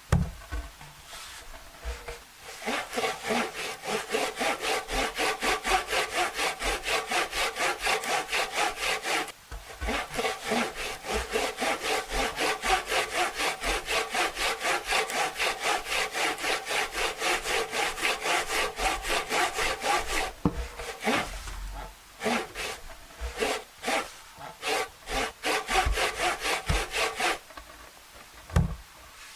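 Hand frame saw with a thin blade cutting lengthwise through a wooden blank, in quick, even back-and-forth strokes with a short break about nine seconds in. Around twenty seconds in the sawing turns slower and uneven, then stops near the end.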